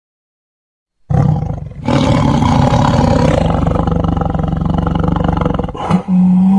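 Tiger roaring: a short roar about a second in, then a long rough roar of about four seconds that breaks off near the end, where a steadier call begins.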